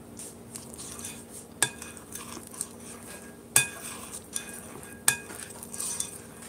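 A spoon stirring thick shrimp fritter batter in a glass mixing bowl: a soft wet scraping, with a few sharp clinks as the spoon strikes the glass, the loudest about 1.5, 3.5 and 5 seconds in.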